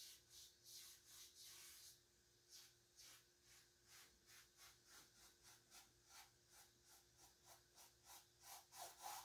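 Paintbrush rubbing acrylic paint onto a stretched canvas in short back-and-forth strokes, about three a second, faint at first and growing louder near the end.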